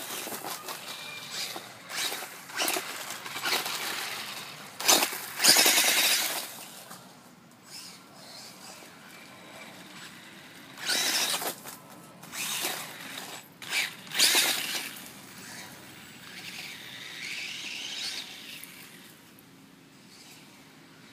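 Nikko Bison F10 RC buggy, converted to a 3300kv sensorless brushless motor on a 60 A ESC, speeding back and forth on a gravel path: a series of high motor-and-tyre bursts as it passes, the loudest about five to six seconds in, then weaker and fading toward the end.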